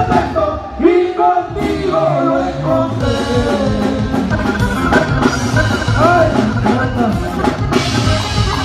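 A live band playing a song led by accordion, with drum kit and bass under it and a voice singing.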